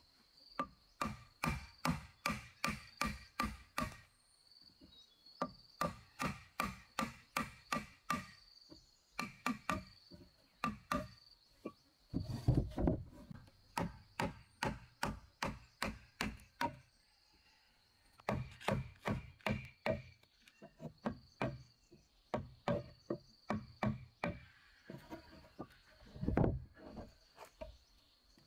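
Wooden mallet striking a steel chisel as it cuts a mortise into a timber beam: runs of quick, even blows, about three or four a second, with short pauses between runs. Twice a heavier, duller thud stands out.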